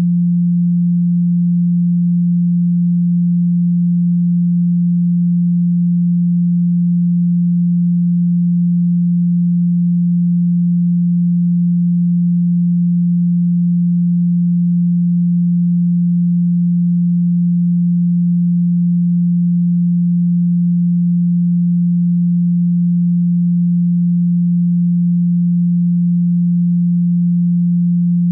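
A steady pure sine tone at 174 Hz, held unchanging at one pitch and level: the Solfeggio frequency played for sound healing.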